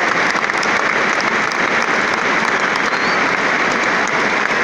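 Large football stadium crowd applauding steadily, thousands of hands clapping at once, with fans right beside the phone clapping close to it.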